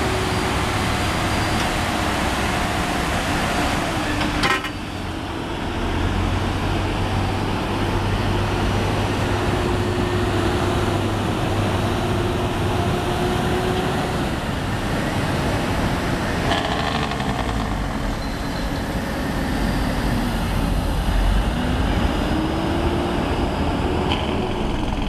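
Diesel engines of heavy-haul tractor trucks running as the convoy rolls slowly past, a steady low rumble, with a sharp click about four and a half seconds in.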